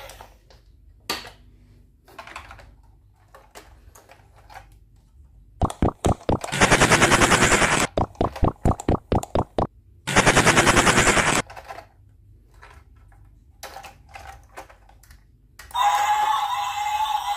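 Battery-powered plastic toy train engine's motor and gears rattling in two bursts of about a second and a half each, with separate plastic clicks before and between them.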